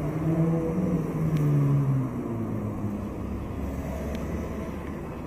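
Car driving past on the street: its engine hum swells to its loudest in the first two seconds, dropping slightly in pitch as it goes by, then eases into a steady low traffic rumble.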